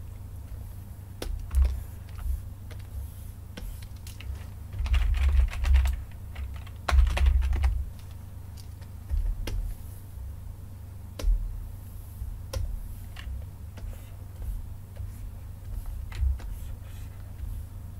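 Computer keyboard typing and mouse clicks: scattered single keystrokes and clicks, with short runs of faster typing about five and seven seconds in.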